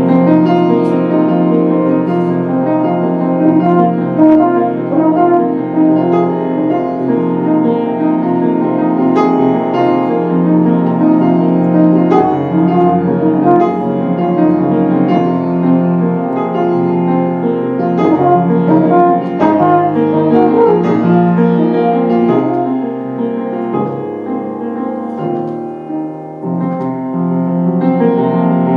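Piano and trombone improvising together, the trombone holding long low notes over the piano. The music drops in loudness briefly a few seconds before the end.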